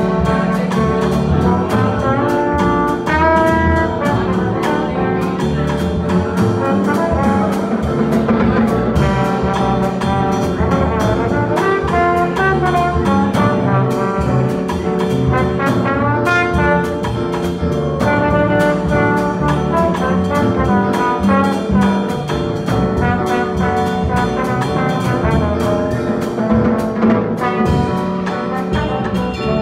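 Live jazz quartet playing, a horn carrying a melodic line with quick runs over bass and a steady drum and cymbal pulse.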